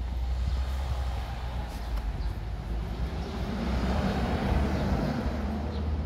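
Road traffic: a car's engine and tyres passing, growing louder about four seconds in, over a steady low rumble.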